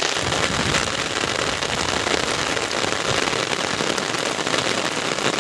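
Heavy rain falling on an open umbrella held close overhead: a dense, steady crackle of drops.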